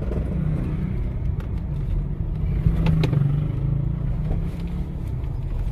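Honda HR-V moving slowly, heard from inside the cabin: a steady low engine and road rumble, with a couple of faint clicks.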